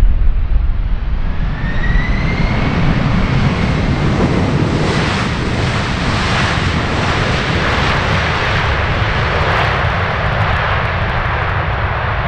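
Boeing 747-400 freighter landing on a wet runway: its four jet engines run loud with a low rumble as it rolls out, and a whine rises in pitch near the start. About four seconds in, a wide rushing roar builds and stays as the jumbo and its cloud of spray pass.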